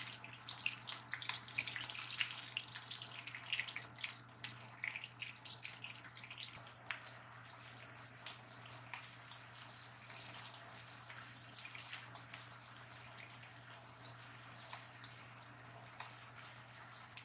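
Garlic and sliced onion sizzling and crackling in hot oil in a nonstick wok, the crackling busiest in the first half.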